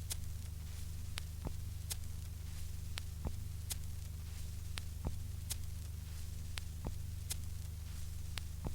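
Vinyl LP playing a silent stretch of groove: a steady low hum with surface clicks, a pair of ticks repeating once every turn of the record, about every 1.8 seconds at 33⅓ rpm.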